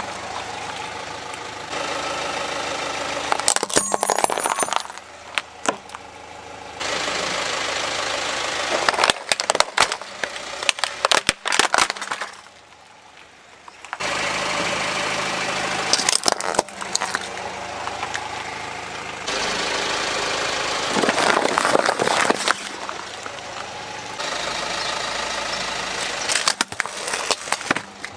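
A car runs at low speed while its tyre rolls over plastic toys, crushing them in several bursts of sharp cracking and crunching.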